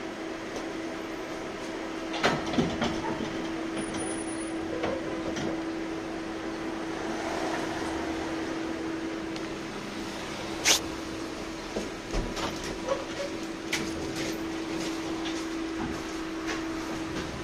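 Interior of a 71-619 tram car moving slowly: a steady hum with one held tone, with scattered clicks, knocks and rattles from the car body and running gear. The sharpest knock comes about ten and a half seconds in.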